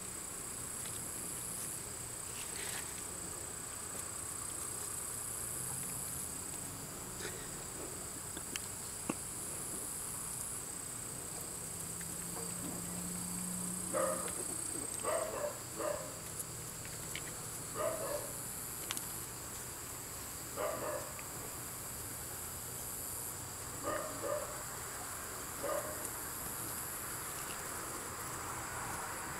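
Insects chirring steadily throughout. From about halfway on, young puppies give a series of short yips as they wrestle, about nine brief calls spread over the second half.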